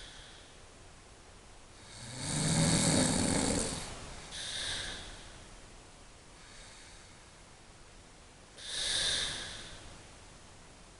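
A pregnant woman snoring in her sleep: one loud snore about two seconds in, a shorter breath out right after it, and another noisy breath near the end, with quiet pauses between.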